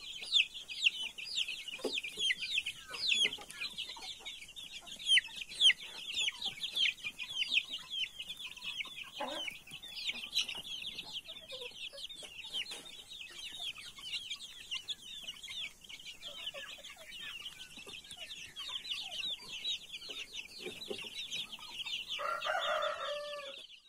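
Month-old chicks peeping nonstop, a dense chorus of short high chirps. Near the end, one lower, longer call stands out.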